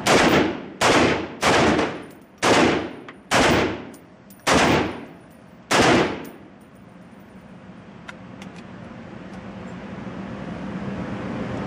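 A Crusader Broadsword .308 semi-automatic battle rifle firing seven shots over about six seconds, unevenly spaced, each with a sharp crack that echoes off the walls of an indoor range. After the last shot only faint background noise remains.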